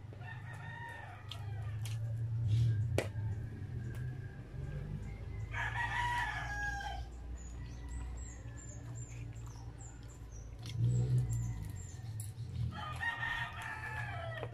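A rooster crowing in the background three times, a faint crow at the start, then two louder ones, each about a second and a half long and dropping in pitch at the end. Underneath are low thumps and light clicks of close-up eating.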